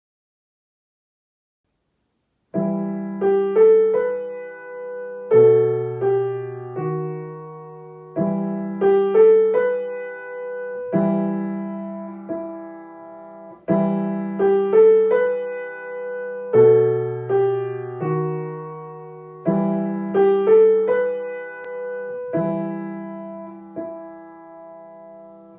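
Piano playing a short, gentle 'once upon a time' storytelling cue used for nursery-school play acting: a phrase of melody over held low chords, repeated about four times. It begins about two and a half seconds in.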